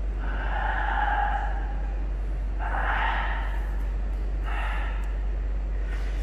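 A man breathing out heavily three times, in long breathy gasps: the first lasts nearly two seconds, the other two are shorter. A steady low hum runs underneath.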